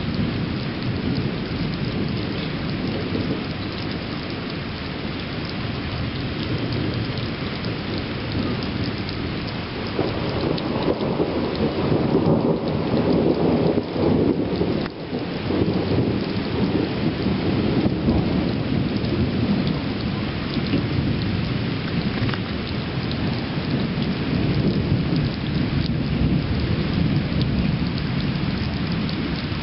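Thunderstorm: steady rain falling with continuous rolling thunder, the rumble swelling louder for several seconds about a third of the way in before easing back.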